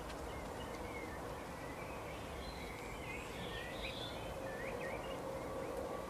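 Small songbirds chirping and twittering in short, quick notes over steady outdoor background noise and a faint steady hum.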